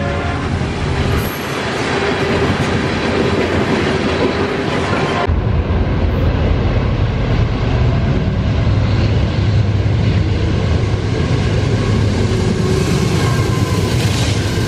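Freight train of tank cars rolling past, steel wheels running on the rails. About five seconds in the sound cuts abruptly to another train passing, with a strong deep rumble from Norfolk Southern locomotives.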